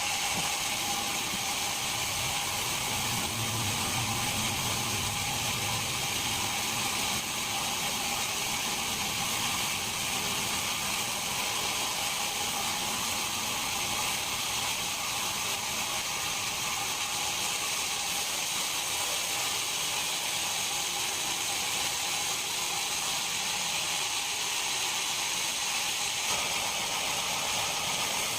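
Machinery running steadily: an even hiss with a few constant high whining tones, no separate cuts or knocks.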